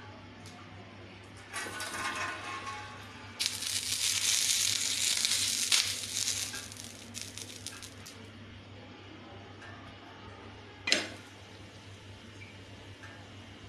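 Water sprinkled onto a hot, upside-down iron tawa sizzling: a first hiss about a second and a half in, then a louder, longer hiss that dies away in crackles. A brief sharp sound about eleven seconds in, as the roti is laid on the griddle.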